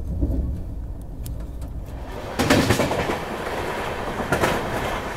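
Moving express passenger train: a low rumble, then about two and a half seconds in the wheel and rail noise suddenly grows much louder, with a few sharp clacks over the rail joints.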